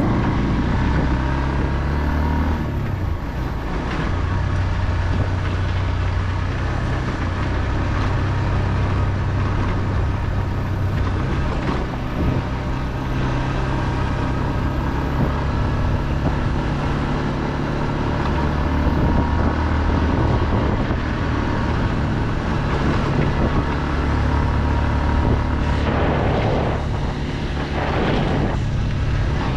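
Car driving along a road: steady engine and road rumble, with two brief louder swells near the end.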